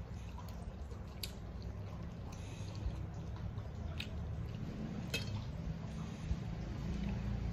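Eating by hand: fingers squishing and mixing rice with curry on a steel plate, with chewing and a few sharp wet clicks, over a steady low hum.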